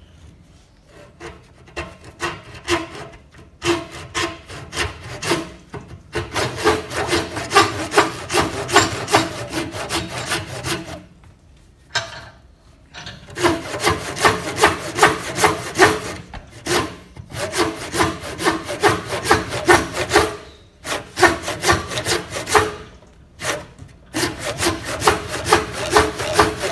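Old Tramontina western-style handsaw cutting through a green pitanga branch held in a vise, rasping back and forth in quick, even strokes with a few short pauses. The saw binds a little in the cut.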